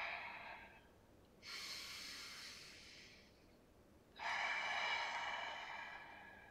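A man breathing hard through the mouth, paced to a slow Pilates exercise: one breath trails off at the start, another comes about a second and a half in, and a louder one about four seconds in, each fading out over a second or two.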